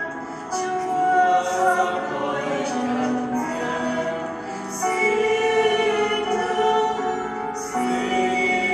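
Church choir singing in long held phrases, with short breaks between phrases.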